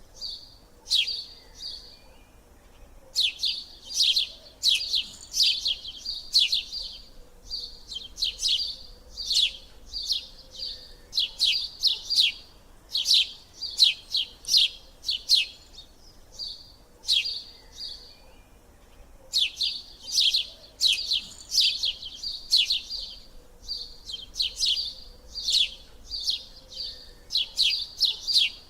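A bird chirping: quick runs of short, high, downward-sliding chirps, several a second, coming in bursts with brief pauses between them.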